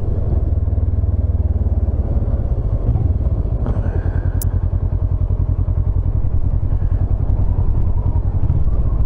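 Motorcycle engine running on the move, a steady low rumble, with heavy wind noise on the microphone. A single sharp click about four and a half seconds in.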